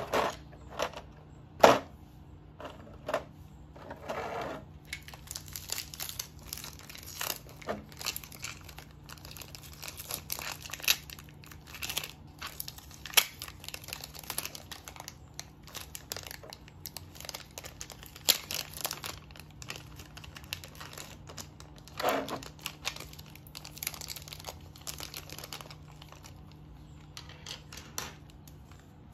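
Thin clear plastic packaging (a small plastic bag and a plastic blister tray) crinkling and crackling in irregular bursts as it is handled and opened, with a few louder sharp clicks, one near the start and one about three-quarters of the way through.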